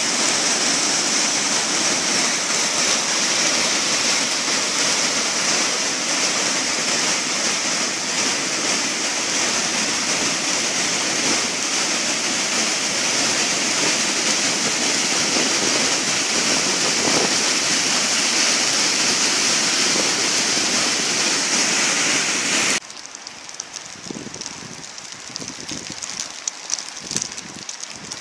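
Swollen river in spate, white water rushing in a loud, steady, unbroken wash. About three-quarters of the way through it cuts suddenly to a much quieter bed of rain and wind with small irregular spatters.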